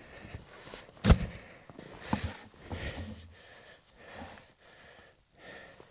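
A sharp thump about a second in, followed by a few fainter knocks and rustles.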